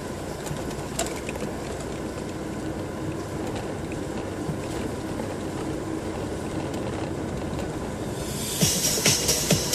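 In-cabin sound of a 1994 VW Passat B4 with its 1.9 TD (AAZ) turbodiesel, driving slowly: a steady rumble and hiss. Near the end, electronic dance music with a steady beat starts up and becomes the loudest sound.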